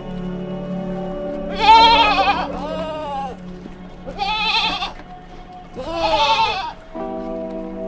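Sheep bleating: four wavering bleats in turn, the first the loudest, over steady background music.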